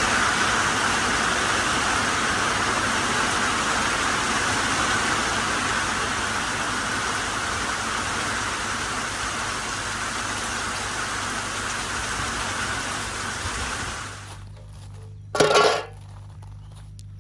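Steady road and engine noise of a moving car. About fourteen seconds in it drops to a low engine hum, with one brief loud noise a second or so later.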